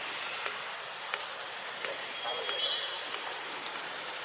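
Outdoor nature ambience: a steady hiss with a run of short, high, rising chirps, about three a second, through the second half, and a few faint clicks.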